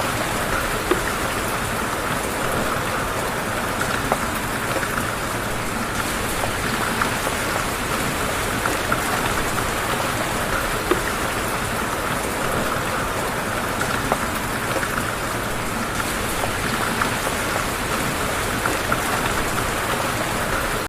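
Steady rain falling, with individual louder drops striking a surface every few seconds.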